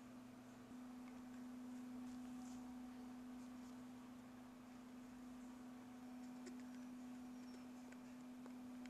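Near silence with a faint, steady low electrical hum on one pitch, and a few very faint light clicks.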